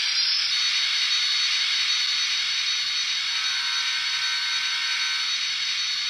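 Jet-engine sound from the DCC sound decoder in a Kato N scale jet-powered RDC, played through the model's small speaker: a high whine rises and levels off about half a second in, then holds as a steady jet hiss with a thin whistle on top.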